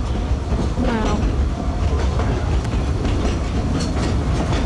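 Narrow-gauge train rolling along the track, heard from its open passenger car: a steady low rumble with irregular clicks from the wheels over the rail joints.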